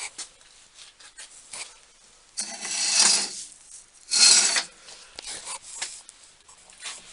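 Metal hand tools being handled and shifted around in a steel tool drawer: light clinks, then two louder scraping rattles, the first a little under a second long and the second shorter.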